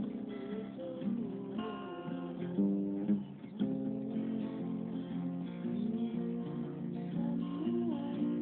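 Acoustic guitar music, strummed and picked.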